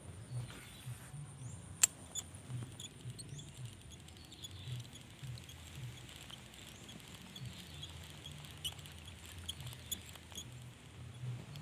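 Baitcasting reel being cranked to retrieve a lure, giving off a light run of small ticks, with one sharp click about two seconds in and soft handling and rustling thumps throughout.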